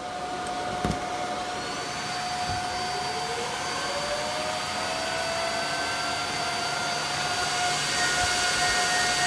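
WhatsMiner M1 Bitcoin ASIC miner and its P3 power supply powering on: a click about a second in, then the cooling fans spin up with a rising whine that levels off, under a rushing air noise that grows louder toward the end.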